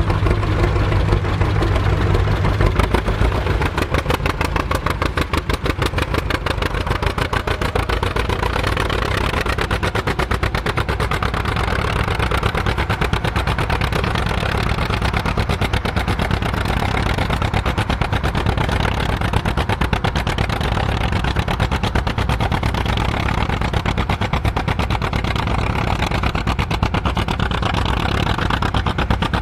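Tandem tractor's engines running steadily, with a fast, even firing pulse.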